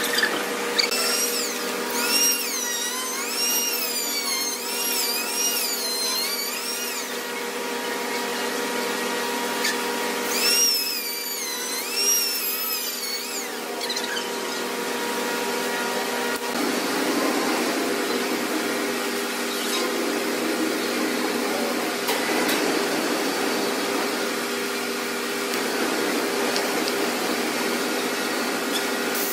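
Electric orbital sander running on a rosewood slab, a steady motor hum. A wavering high-pitched squeal comes twice in the first half, and a rougher rubbing sound joins from about halfway.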